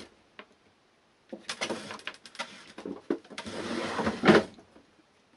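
Hand tools in a tray being rummaged through: a run of clattering, scraping and small knocks from about a second in until near the end.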